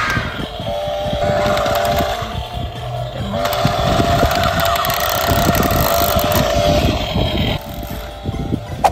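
Battery-powered toy chainsaw running with a steady electronic buzz in two spells, the first about a second and a half long and the second about three seconds, over a rough low rumble, with a sharp click near the end.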